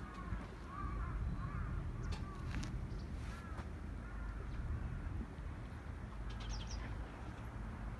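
A bird calling over and over in short arched calls, about two a second, dying away about halfway through, with a brief high chirp later on. Underneath runs a steady low rumble of wind on the microphone.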